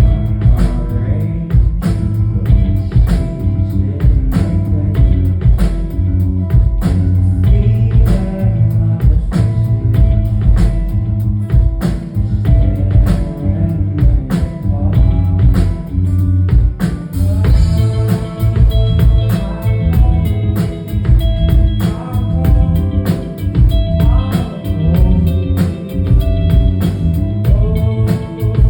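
Live rock band playing a song, recorded from the audience: a steady drum beat, bass and guitars, with singing that becomes clearer from about halfway through.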